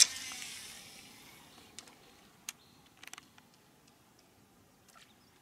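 A fishing cast with a baitcasting rod: a sharp click as the rod is swung, then the hiss of line running off the reel, fading away over about a second and a half. A few faint ticks follow.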